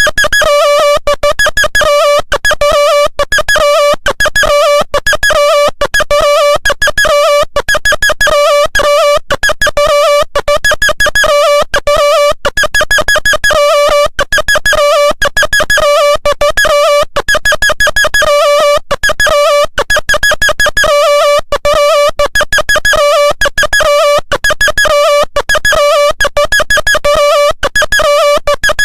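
Synthesized ringtone melody: a short phrase of quick electronic notes that repeats about every two seconds.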